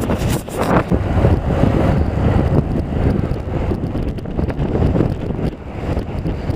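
Wind buffeting the microphone of a helmet camera on a moving bicycle: a loud, uneven low rumble that rises and falls.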